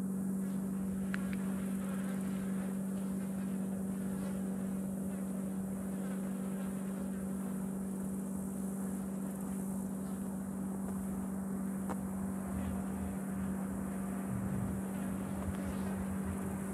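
A steady low motor hum under a faint hiss, with a brief high click about a second in and another near twelve seconds.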